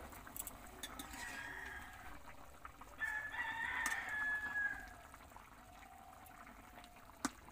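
A rooster crowing: one long crow about three seconds in that lasts nearly two seconds, after a fainter call a second or so earlier. A single sharp click near the end.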